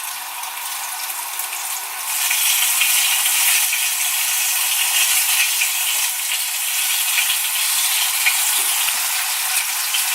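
Flour-dredged fish pieces sizzling as they fry in hot vegetable oil in a skillet over high heat. The sizzle grows louder about two seconds in and then holds steady.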